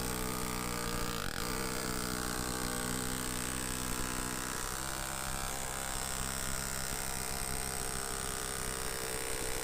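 Pneumatic air hammer running continuously as it chisels through the car's sheet-metal quarter panel: a steady, rapid buzzing rattle with an air hiss, its low tone roughening a little about halfway through.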